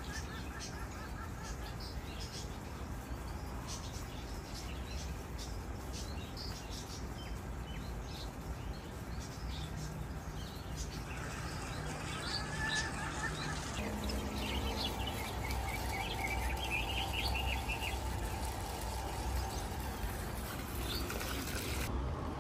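Birds chirping and calling in the trees: bursts of quick twittering notes at the start, about halfway through and again a few seconds later, over a steady low outdoor rumble.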